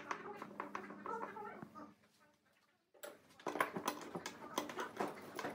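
Metal clamps being handled and screwed tight: a run of sharp clicks, ticks and light clatters. The sound drops out abruptly for about a second near the middle, then the clicking resumes.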